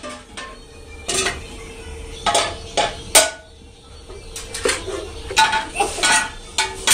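Irregular clanks and knocks of metal objects striking one another, some ringing briefly, over a steady faint hum.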